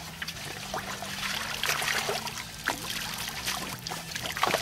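Water splashing and trickling in irregular bursts as caught roach and bream are released back into shallow pond water, with the fish flicking at the surface.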